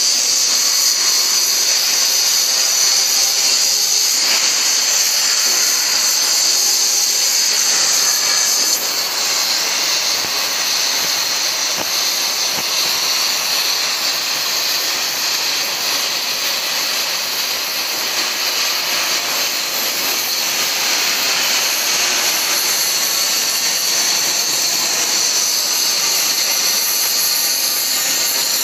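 Oxy-fuel cutting torch cutting 10 mm steel plate: a loud, steady hiss of the gas flame and cutting-oxygen jet, which steps down slightly about nine seconds in.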